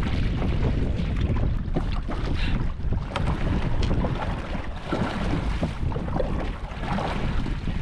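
Wind buffeting the microphone aboard a small fishing boat, a steady low rumble, with water sounds and scattered light knocks.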